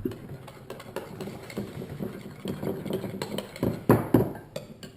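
Sticky slime mixture of glue, shaving cream and foaming hand soap being stirred and worked in a bowl: continuous wet, crackly squelching with many small clicks, and a few louder knocks about four seconds in.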